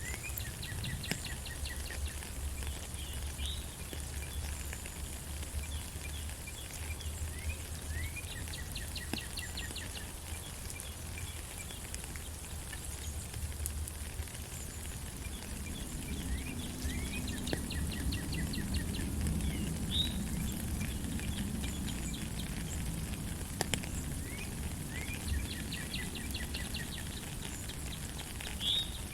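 Steady rain falling in a forest, with birds singing over it: a rapid trilled phrase with chirps returns about every nine seconds.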